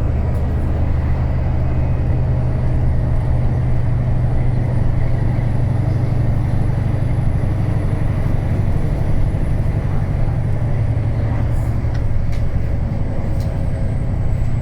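Cummins ISB diesel engine of a 2009 Wright Pulsar 2 single-deck bus running steadily, a strong low drone. A faint high whine rises and falls over it, and a few light clicks come near the end.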